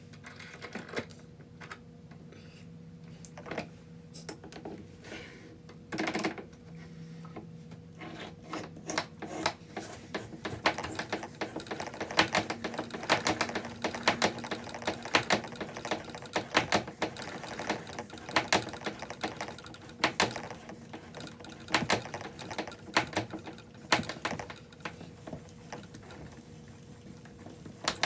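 A thread tap cutting into the drilled pin hole of a maple cue handle: a run of irregular clicks and creaks that grows denser about eight seconds in, over a faint steady hum.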